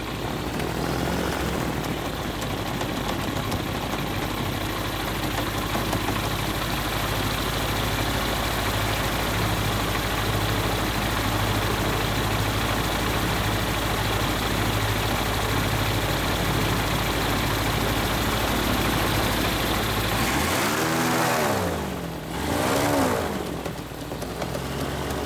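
Flexwing microlight trike's engine idling steadily under heavy wind noise on the microphone. Near the end the engine note swells up and drops back twice.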